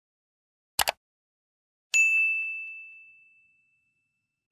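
Two quick clicks, then about two seconds in a single bright bell ding that rings and fades away over a second and a half: the click and notification-bell sound effects of an animated like-and-subscribe button.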